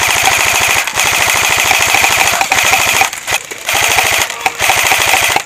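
Airsoft electric gun firing full-auto close by, a rapid rattle of shots. A long burst of about three seconds is followed by two shorter bursts.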